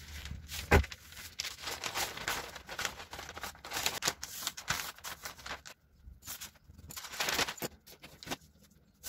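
Large sheet of kraft pattern paper rustling and sliding over a cutting mat as it is handled and repositioned, with a single knock about a second in.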